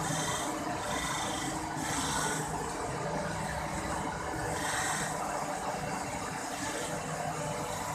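Double column CNC surface grinder running: a steady machine hum with hissing swells that come and go every second or few seconds.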